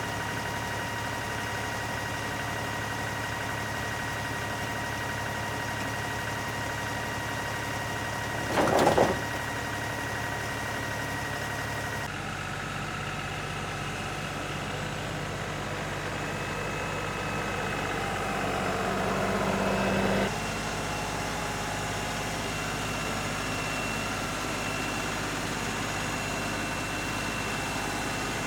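An engine running steadily, with a short loud burst about nine seconds in. The sound changes abruptly at about twelve seconds, then swells for a few seconds and cuts off suddenly.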